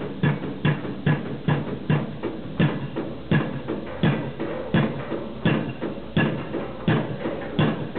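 Pile-driving hammer striking the top of a precast concrete foundation pile in a steady series of heavy blows. The blows come a little faster than two a second at first, then slow to about one every 0.7 s after two seconds.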